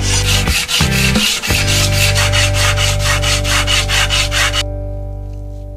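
Hand file rasping across the steel of a knife blank in rapid, evenly paced strokes, shaping the blade's bevel. The strokes stop abruptly about four and a half seconds in, leaving only a fading music chord.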